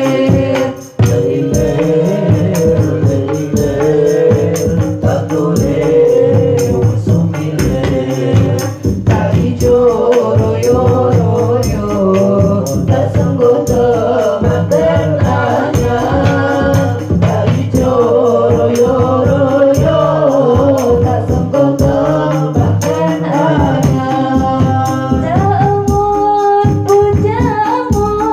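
Live sholawat music from a rebana ensemble. A woman sings the lead through a microphone over rebana frame drums and kendang hand drums, with jingling kecer cymbals. The level dips briefly about a second in.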